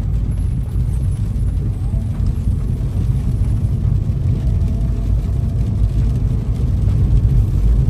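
Car driving along: a steady low rumble of engine and road noise.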